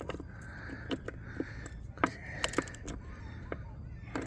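Metal socket tools clinking: a socket on a universal joint being worked onto a spark plug, a few scattered sharp clicks over a steady low rumble.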